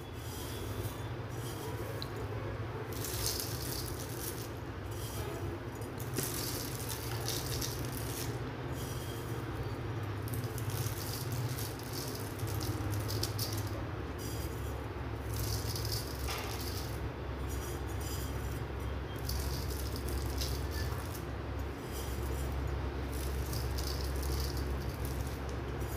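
Crisp fried sev rustling as it is sprinkled by hand over dry puffed-rice chevdo in a metal bowl, an irregular dry rattle that goes on without a break, over a low steady hum.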